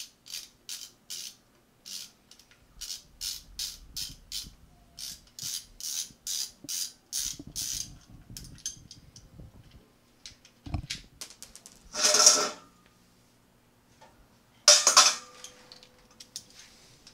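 Hand socket ratchet clicking in a run of short, quick strokes as it backs out the Torx derby-cover screws on a Harley-Davidson Sportster's primary cover. About eleven seconds in comes a knock, then two louder metal clatters a few seconds apart, the second ringing briefly.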